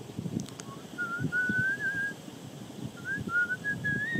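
Someone whistling a slow, wandering tune in two phrases, the second climbing a little higher than the first.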